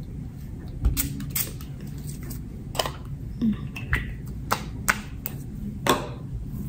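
Face setting spray bottle pumped repeatedly, misting the face: several short, sharp spritzes at uneven intervals.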